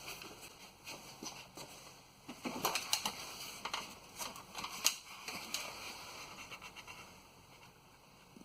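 Scattered clicks, taps and rustling of handling, busiest in the middle, as more quart bottles of motor oil are fetched and got ready to pour.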